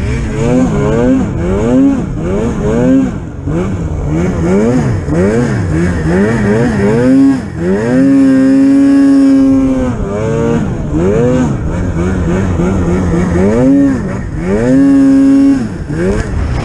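Polaris Pro RMK 800 snowmobile's two-stroke 800 cc engine revving up and down about once a second in repeated throttle blips. Twice it is held at high revs for a second or two, about halfway through and near the end.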